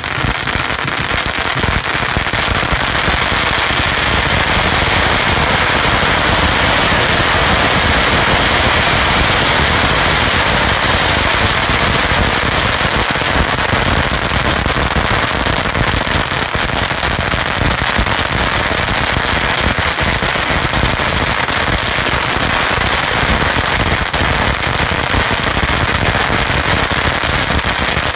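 Long hanging strings of Chinese firecrackers going off, a dense unbroken rattle of rapid bangs and cracks that holds steady and loud throughout.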